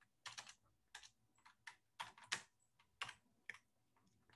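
Computer keyboard being typed on: about a dozen faint single keystrokes, irregularly spaced.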